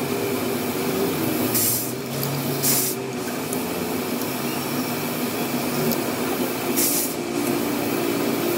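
Metal lathe running with a steady hum while a twist drill in the tailstock chuck drills into the end of the spinning shaft, with a few short bursts of hiss as the bit bites.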